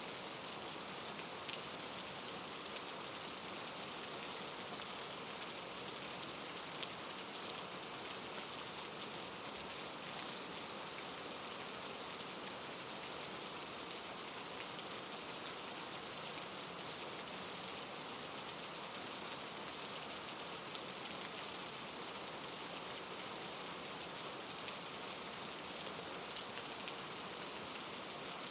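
Steady soft rain: an even hiss of rainfall with scattered faint drop ticks, unchanging throughout.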